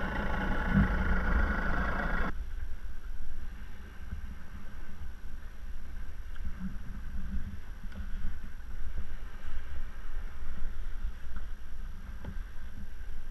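Water sloshing against a sea kayak's hull, with a low gusty rumble of wind on the microphone. The higher rushing part cuts off abruptly about two seconds in, leaving mostly the low rumble.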